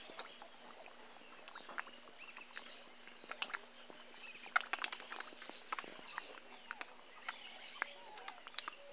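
Fish feeding at the surface on floating feed pellets: a dense, irregular scatter of small sharp pops, smacks and little splashes as they gulp pellets from the water.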